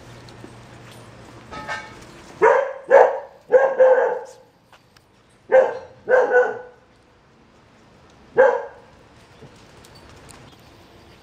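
A dog barking: about eight short barks in three quick groups, the last one alone about two seconds after the others.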